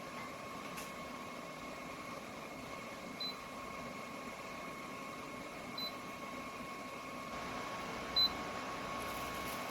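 VCK bladeless tower fan running with a steady rush of air and a thin high whine. Three short single beeps from its controls sound about three, six and eight seconds in, the last the loudest, and the fan gets a little louder after about seven seconds.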